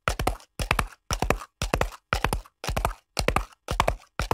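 Horse hoofbeats in a steady galloping rhythm: quick clusters of three or four sharp hoof strikes, about two clusters a second.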